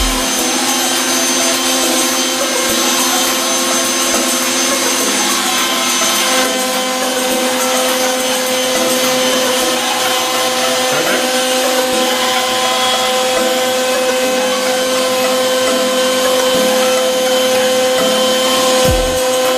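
Router running with a two-flute straight bit, cutting wood with a steady, loud whine over the noise of the cut.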